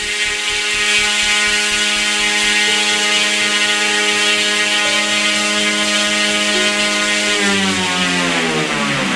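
RC aircraft's electric propulsion motor running at full throttle with a steady whine, its power held under the 1 kW limit by a PI controller so the power limiter does not cut in and stall it. Near the end the pitch starts falling as the motor spins down.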